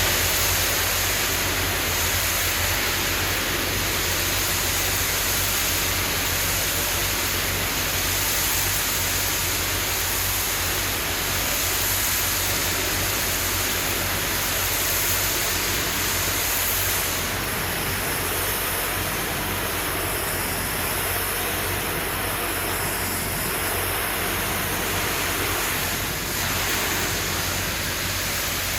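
Pressure washer spraying a high-pressure water jet onto precast concrete: a steady hiss of spray with a steady low hum underneath, its tone shifting about seventeen seconds in.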